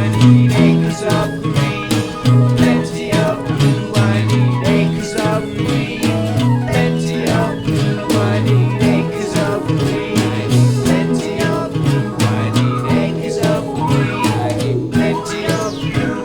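Music from a recorded track, with a repeating bass line under a busy, steady beat and no words.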